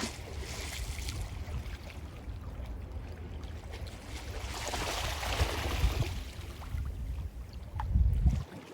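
Mediterranean Sea waves washing on the shore, with one wave building and breaking about halfway through. Underneath runs a low rumble that swells just before the end and then drops away suddenly.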